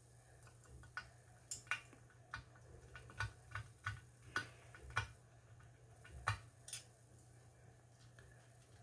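About a dozen small, irregular clicks and taps of hard plastic as fingers work the battery wires into the plastic battery compartment of a model car chassis.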